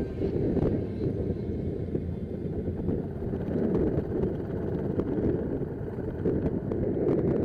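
Motorcycle running along the road: a steady engine and road rumble, with wind buffeting the microphone.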